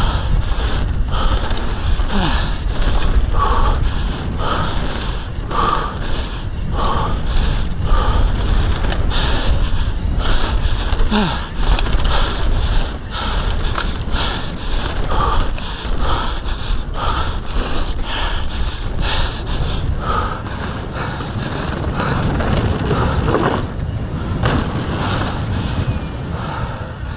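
Mountain bike ridden hard down a dirt race track: steady wind buffeting and tyre rumble, with frequent sharp rattles and knocks from the bike over bumps, and the rider breathing hard about once a second.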